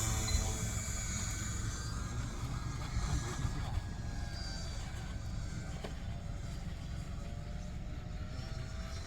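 Motor of a radio-controlled Cessna 182 scale model plane in flight, fading as it moves away, its faint pitch slowly shifting over a steady low rumble.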